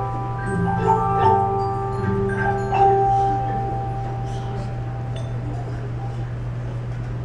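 Tuned mallet percussion, xylophone and glockenspiel-type instruments, playing a short phrase of struck notes; the last note rings out about three seconds in and fades, leaving a steady low hum underneath.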